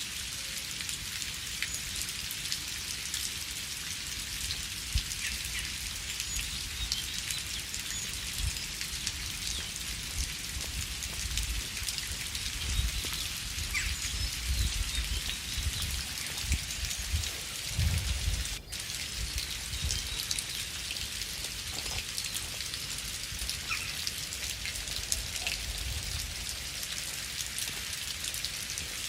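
Steady rain falling, an even hiss with scattered ticks of single drops. A low rumble swells and fades in the middle, and the sound drops out for an instant about two-thirds of the way through.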